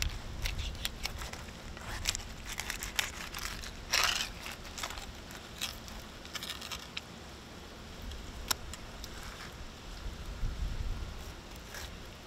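Fillet knife cutting through a small yellowtail snapper on a fish-cleaning table: scattered crunches, clicks and scrapes as the blade works along the fish, the loudest about four seconds in.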